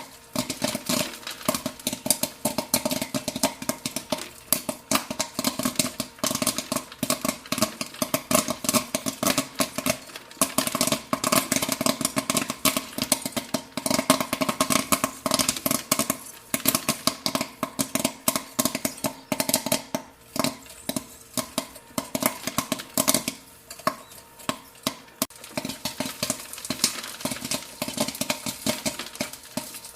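Popcorn popping: many sharp pops in quick, irregular succession over a steady hum.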